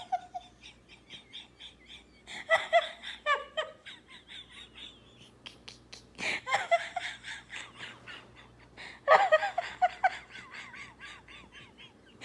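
People laughing in a run of short, quick bursts, loudest about 2.5, 6 and 9 seconds in.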